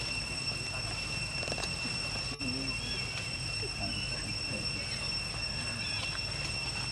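Outdoor ambience: a steady high-pitched insect drone, with a low rumble and faint distant voices underneath.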